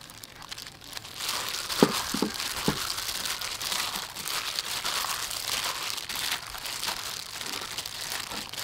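Thin plastic food-prep glove crinkling and rustling as a hand tosses flour-coated fish pieces in a ceramic bowl, getting going about a second in. A few short squeaks sound around two seconds in.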